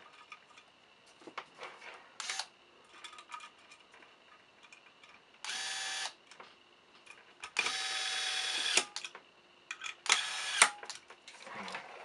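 Corded electric screwdriver running in three short bursts, the middle one the longest, driving screws into a fingerprint door lock's metal housing. Light clicks and taps of small metal parts being handled come between the bursts.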